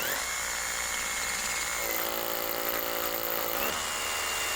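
Brushless rotary hammer drill running steadily under load, drilling into brick/cement block; its motor whine rises as it spins up at the start.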